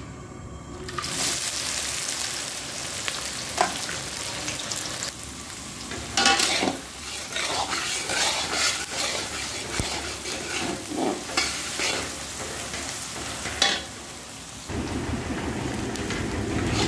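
Chopped onions dropped into hot oil in a metal kadai, sizzling from about a second in as they fry. A spatula stirs and scrapes against the pan now and then.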